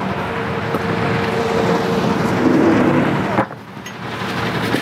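Large forklift's engine running steadily as it lowers a CNC machine onto a trailer, with a steady whine through the first half. The sound swells slightly, then drops away sharply about three and a half seconds in and builds back.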